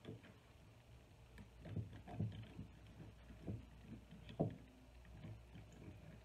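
A plastic spatula pushed down and worked through chicken pieces and broth in a glass canning jar to release trapped air bubbles before processing. It gives a few soft, irregular knocks, the strongest about four seconds in.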